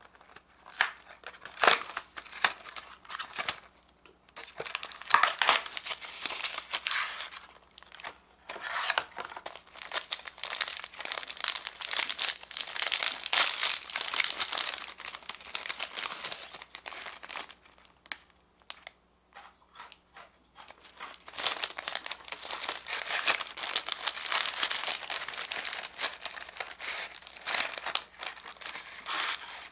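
Cardboard snack box opened at its tab with a few sharp crackles, then a foil-lined plastic pouch of pretzel sticks crinkling and tearing open in long bursts, with a pause of a few seconds in the middle.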